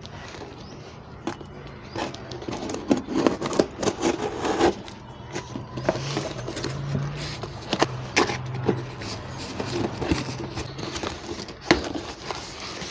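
Packing tape on a cardboard box being pierced, slit and peeled off. Irregular scrapes, rips and crackles continue as the cardboard flaps are pulled open near the end.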